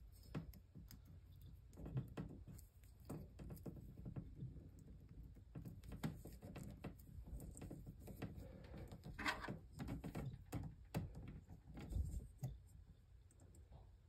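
Faint handling noises of a shielded Cat8 cable and its metal RJ45 plug: irregular small clicks and taps as the wires and plug parts are worked by hand, with a longer scratchy rustle about nine seconds in.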